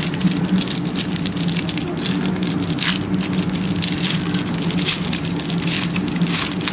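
Trading-card pack wrapper crinkling and tearing open as the cards are pulled out, a dense irregular rustle over a steady low hum.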